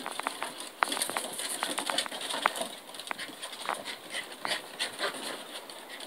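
Puppies' claws and paws clicking irregularly on wooden deck boards as they scamper and wrestle.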